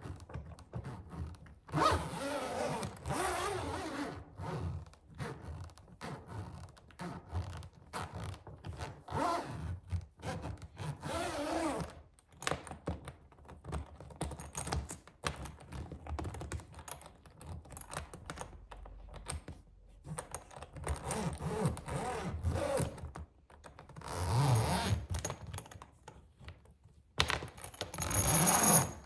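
Suitcase zipper pulled in several long strokes, with many short taps and clicks on the case between them.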